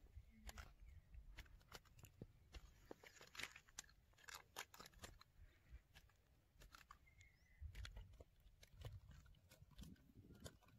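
Near silence with faint, scattered sharp clicks and crackles, most of them in the first half, over a low rumble.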